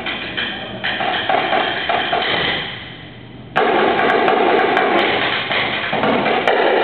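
Marching snare drum played in a fast solo: dense rapid strokes that die away to a quiet passage about three seconds in, then a sudden loud accent and full, dense playing again.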